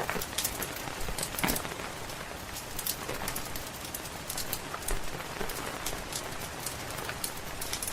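Steady rain hissing, mixed with a wood fire crackling in irregular sharp pops and clicks.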